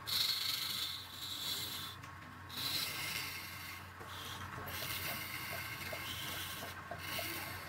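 A hand-held turning chisel cutting a spinning wooden spindle on a lathe: a hissing scrape that comes in several passes with short breaks between them, over the steady low hum of the lathe.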